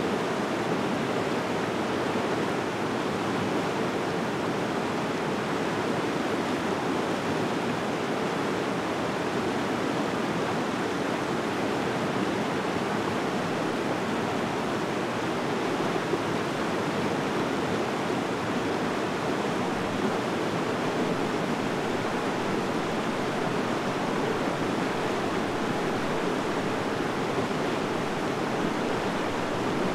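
Steady rushing water, an even, unbroken roar.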